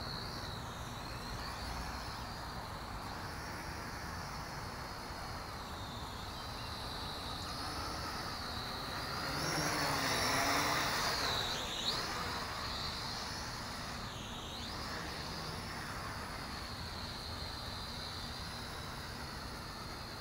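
Small toy quadcopter's motors and propellers whining, the pitch rising and falling as the throttle changes, getting louder for a few seconds around the middle as it flies closer.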